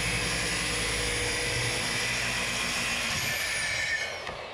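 Onefinity CNC router running with a steady motor drone and a high whine. Near the end the whine falls in pitch and the sound dies away as the spindle spins down.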